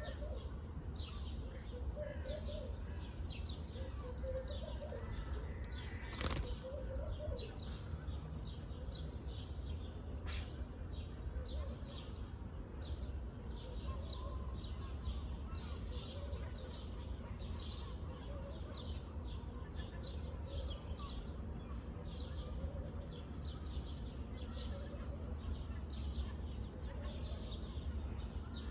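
Pet parrot chirping over and over in short high chirps, mixed with some wavering lower notes, over a steady low hum. A single sharp click comes about six seconds in.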